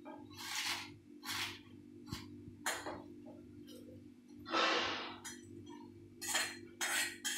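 A metal spatula scraping and clinking in an iron kadhai as dry-roasted curry leaves are scooped out into a steel jar: a run of short scrapes and rustles, the longest and loudest about halfway through.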